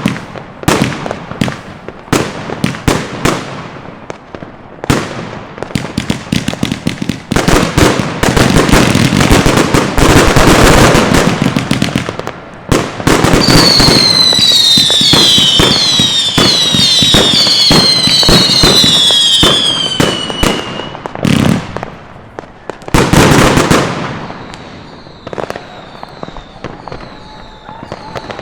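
Fireworks going off in a rapid run of sharp bangs that swell into dense crackling and booming about eight seconds in. A string of falling whistles comes about halfway through, then a couple more big bangs, and it thins out to scattered pops near the end.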